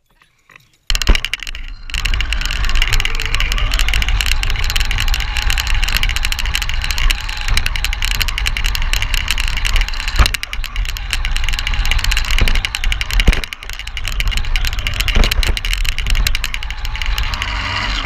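HSP Racing radio-controlled car driving, heard from on board: a loud, rough rush of its motor, drivetrain and tyres over bumpy ground, starting about a second in, with a few sharp knocks as it hits bumps.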